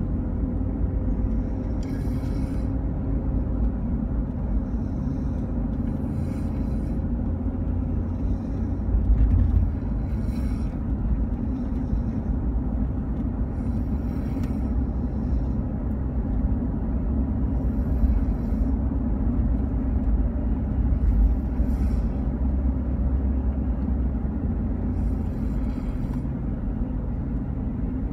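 Children snoring in their sleep, a breath every few seconds, over a steady low rumble.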